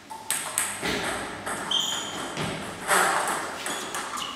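Table tennis ball clicking off bats and the table in a doubles rally, a sharp click about every half second. A short high squeak comes partway through.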